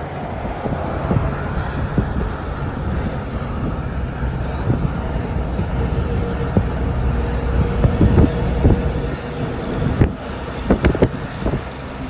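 Road and engine rumble of a car driving on a highway, with wind buffeting the microphone in short gusts, several of them about eleven seconds in.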